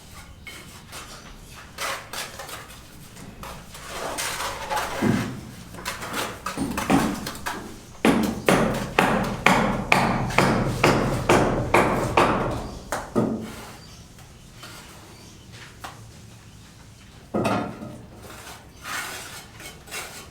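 Hammer blows on a building site: scattered knocks, then a steady run of about two strikes a second for roughly five seconds in the middle, and a few more knocks near the end.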